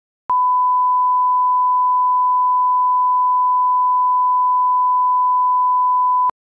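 1 kHz line-up reference tone played with colour bars: one steady pure tone lasting about six seconds, which starts and stops abruptly with a faint click at each end.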